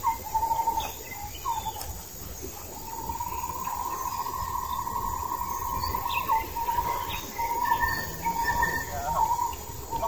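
Insects droning on one steady pitch, breaking into short pulses about halfway through, with brief bird chirps.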